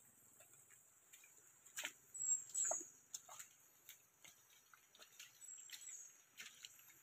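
Faint forest sounds: a steady high insect drone, with a short high chirp that comes back about every three seconds. Scattered crackles and rustles of footsteps on a leafy dirt trail, loudest around two to three seconds in.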